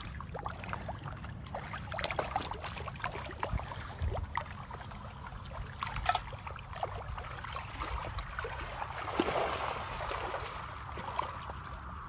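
Water trickling and lapping, with many small splashes and ticks and a busier stretch of splashing about nine seconds in.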